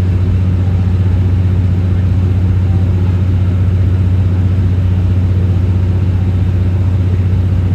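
Steady low diesel drone with a constant hum and rolling running noise, heard inside a slow-moving 12-series passenger coach.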